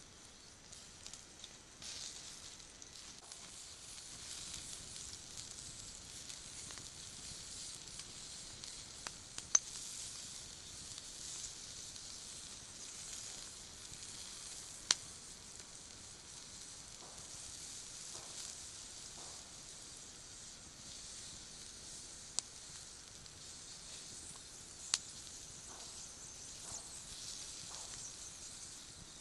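Sausages sizzling on a wire grill grate over a wood campfire: a steady high hiss, broken by four sharp pops.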